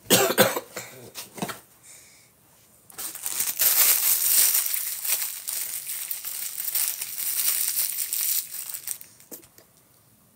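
A short, loud burst of noise right at the start. A couple of seconds later comes close crinkling and rustling that lasts about six seconds and then stops.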